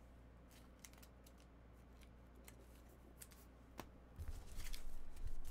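Faint scattered clicks and light handling noise of trading cards over a low steady hum, with one sharper click and then soft low thumps starting about four seconds in.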